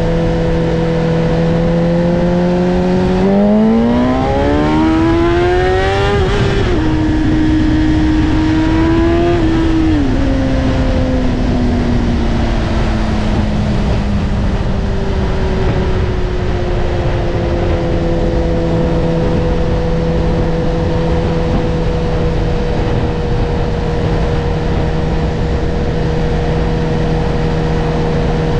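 Sport motorcycle engine heard from the rider's seat over steady wind rush. It cruises, then about three seconds in the revs climb hard under acceleration, with upshifts near six seconds and again near ten. It then eases off and settles into a steady cruise.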